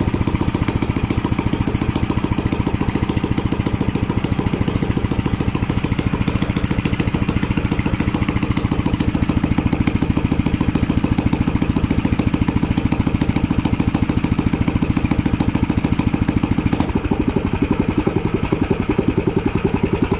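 Small single-cylinder Yasuka petrol engine running steadily at idle, its carburettor air setting being adjusted; the sound changes about 17 seconds in.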